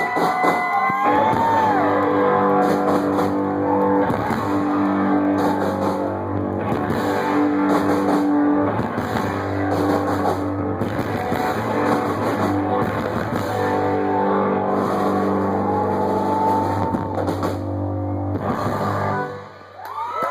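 Live punk-blues rock band playing an instrumental passage, with electric guitar over a steady drum beat. The song stops about a second before the end, and the crowd starts cheering.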